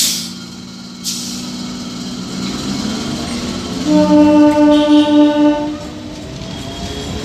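Electric multiple unit local train sounding its horn for about two seconds, a few seconds in, over a steady electric hum. Two short hisses of air come near the start.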